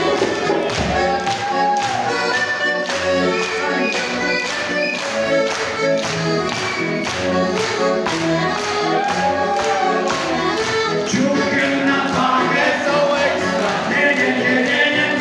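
Live music from a piano accordion and an acoustic guitar with a steady beat, the accordionist singing into the microphone.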